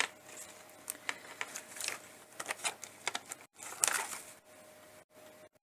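Craft materials being handled by hand: irregular crinkling and rustling with light clicks and taps, loudest about two and four seconds in.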